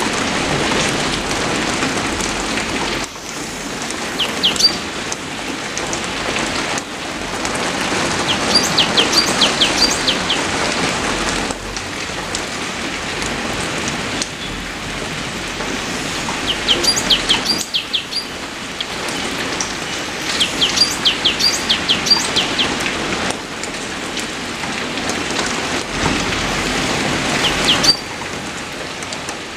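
Steady rain falling on leaves, its level shifting in steps every few seconds. A bird calls over it in runs of short, quick falling chirps every few seconds.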